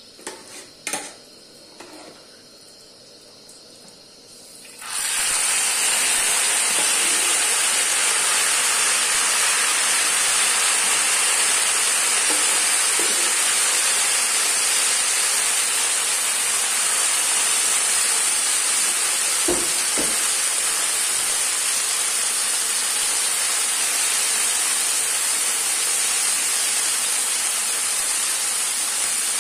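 Boiled rice tipped into a pan of hot oil about five seconds in, setting off a loud, steady sizzle as its moisture hits the oil, which keeps going. Two short knocks come about two-thirds of the way through.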